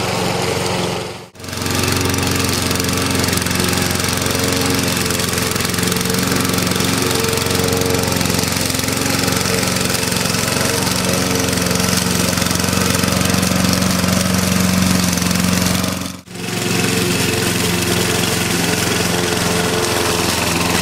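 AL-KO Silver 520 BR Premium petrol lawn mower engine running steadily under load while cutting tall grass. The sound drops out briefly twice, about a second in and about sixteen seconds in.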